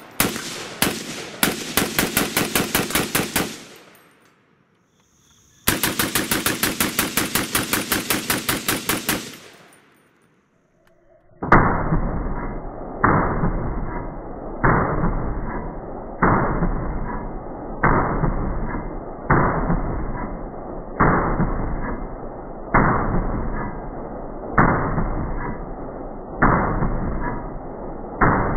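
FN SCAR 17S rifle in 7.62×51 / .308 fired in two fast semi-automatic strings of sharp cracks with short pauses between. In the second half the shots are slowed right down into deep, drawn-out booms about every second and a half.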